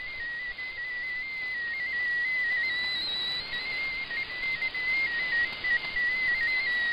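MFSK16 digital text signal received on shortwave: a single whistling tone hopping rapidly between closely spaced pitches over a steady hiss of band static. The tones carry the broadcast's text.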